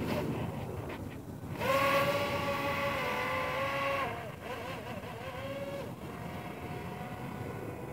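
Small electric motor and propeller of a converted foam RC plane whining in flight, a steady high hum that is loudest from about one and a half seconds in to about four seconds, dropping slightly in pitch partway through, then fading in and out fainter as the plane flies farther off.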